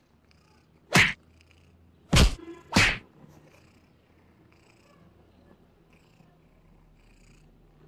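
A domestic cat meowing three short times, about a second in, then twice more close together just after two seconds, begging for the meat held out in front of it.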